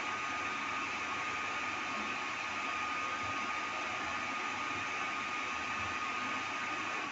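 Electric dryer running steadily: a rush of blown air with a thin high whine from its motor, switching off at the very end.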